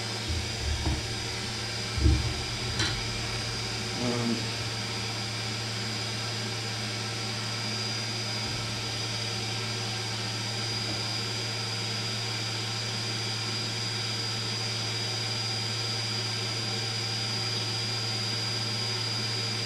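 Solder fume extractor fan running with a steady low hum and a thin high whine. A few brief knocks in the first four seconds.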